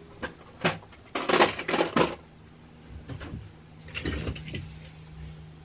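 Toy cars clattering and knocking together as a box of them is rummaged through: a couple of knocks, then a burst of rattling about a second in, and a few more knocks later on. A low steady hum runs underneath.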